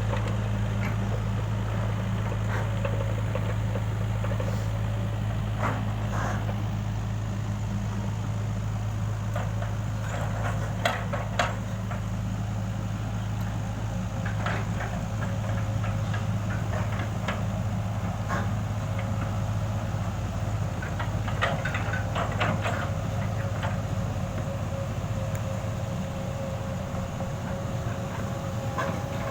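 Excavator's diesel engine running steadily, with a faint whine that grows stronger from about halfway through and scattered short knocks and clanks.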